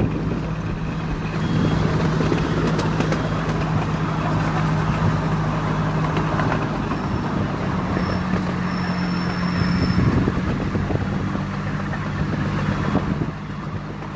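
Ride-on miniature railway train running along its track: a steady engine hum over continuous rolling noise, the hum rising slightly in pitch about eight seconds in.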